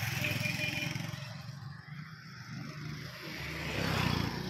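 A vehicle's engine running steadily while driving along, with a rush of road noise that swells and fades near the end.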